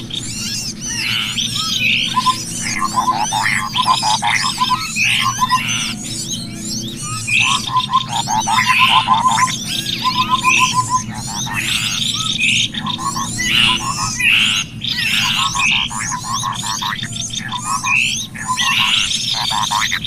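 Dense overlapping small-bird calls: rapid chirps, whistles and short fast trills of repeated notes, a bird-lure call of cucak kopi and small birds, over a steady low hum.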